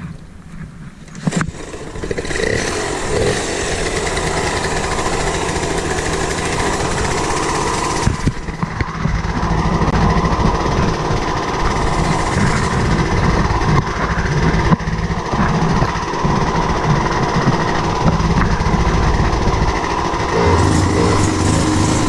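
Small 50cc two-stroke Yamaha moped engine starting about two seconds in and running steadily, getting louder around eight seconds in.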